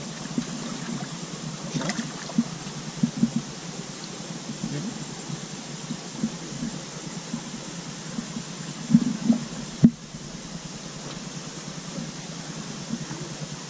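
A bare hand and arm working in the wet mud of a mud crab burrow: irregular squelches and sloshes, with a few louder ones about nine to ten seconds in.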